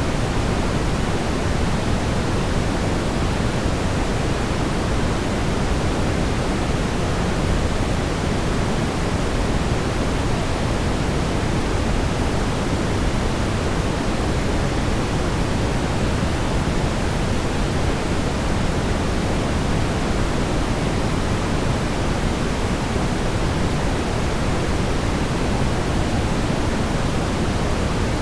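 Steady brown noise: an even, deep rumbling hiss with most of its weight in the low end, unchanging throughout.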